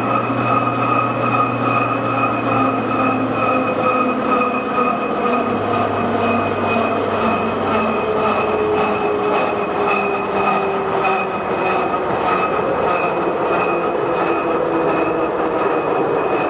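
Stanko engine lathe running under power, its headstock spindle turning the large chuck at about 214 RPM. A steady mechanical hum with a steady gear whine over it.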